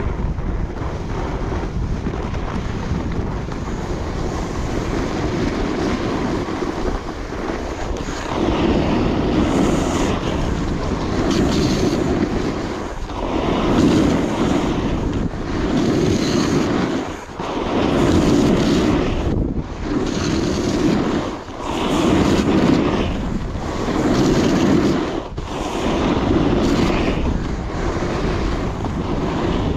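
Wind rushing over a chest-mounted action-camera microphone, mixed with the scrape of a Coiler Nirvana alpine snowboard carving groomed snow. After about eight seconds the noise swells and drops back roughly every two seconds, one surge per linked carved turn.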